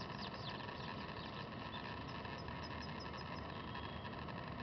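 Steady outdoor background hum and hiss, with a quick run of about seven short high chirps midway through.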